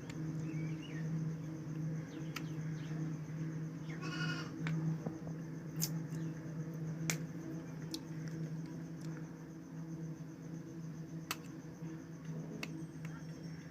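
A steady low hum with a few sharp clicks scattered through it, and a single short bleat from a goat or sheep about four seconds in.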